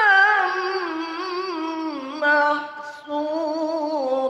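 A man's voice chanting Quran recitation in the melodic, ornamented tilawah style, through a hand-held microphone: long held notes with wavering ornaments, the pitch stepping down over the first two seconds, a short break, then a new held line.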